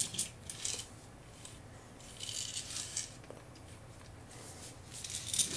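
A small plastic transformable toy car being handled and turned on a tabletop. It gives faint plastic clicks and rattles in a few short patches.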